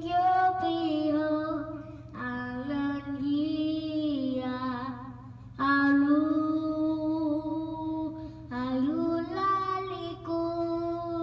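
A child singing into a karaoke machine's microphone, amplified through its speaker: several long, held phrases with short breaks between them, over a steady low electrical hum from the amplifier.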